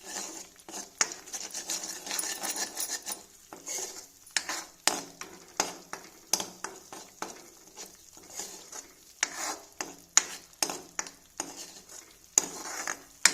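A spoon stirring and scraping ginger paste around a heavy-bottomed kadhai, with irregular clinks against the pan, while the paste sizzles in desi ghee as its water cooks off.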